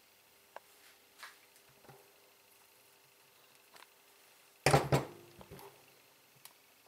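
Handling knocks from a diesel cylinder head being moved on the workbench. A few light clicks come first, then a burst of loud metal clunks about two-thirds of the way through, with a brief ringing and a couple of smaller knocks after.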